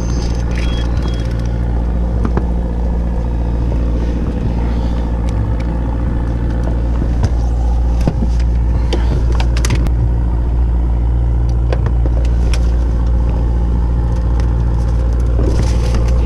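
Steady low drone of the fishing boat's engine running, with scattered light clicks from rods and reels being handled.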